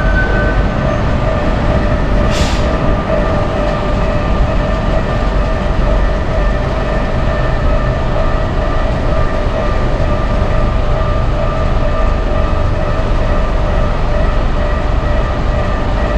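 Keikyu Daishi Line electric train running past at close range: a steady, loud rumble with several steady whining tones held throughout, and a short hiss about two and a half seconds in.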